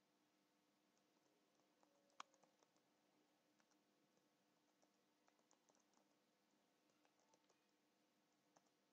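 Near silence with faint, scattered computer-keyboard typing clicks. One click about two seconds in is sharper than the rest.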